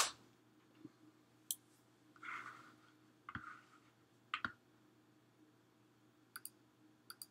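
Faint, scattered clicks and light taps, about eight over several seconds and the sharpest right at the start, with a short rustle about two seconds in: small objects being handled. A faint steady hum lies underneath.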